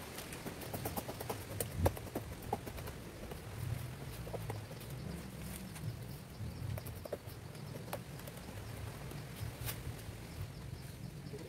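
Scattered light clicks, knocks and rustles of work at a sugar palm trunk as its black ijuk fibre is pulled and stripped, over a low steady rumble.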